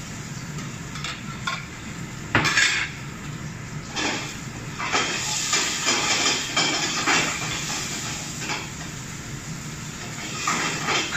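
Metal cooking utensil clattering and scraping in a pan over a gas range, with a steady hiss of frying underneath. There is one loud clang about two and a half seconds in, a quick run of strikes in the middle, and more clatter near the end.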